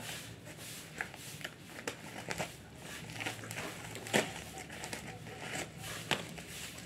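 Scissors cutting open a plastic mailer pouch, with the plastic crinkling and rustling as it is handled and pulled open, and scattered sharp snips, the strongest about four seconds in.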